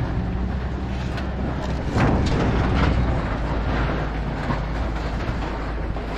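A vehicle engine running steadily, with a few short knocks and clatters, the loudest about two seconds in.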